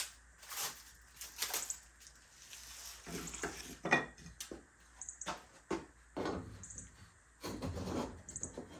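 Wooden shims and a cabinet being handled and pushed into place against a wall: scattered knocks and taps with a few short scrapes.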